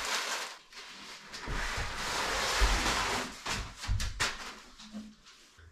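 Packing paper and cardboard rustling and crinkling as a bicycle is unwrapped and lifted out of its shipping box, with a few sharp knocks about two thirds of the way in.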